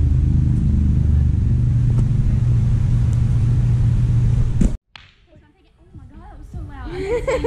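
Steady, loud low rumble of large gym fans running, broken off suddenly by an edit about five seconds in. A voice starts up near the end.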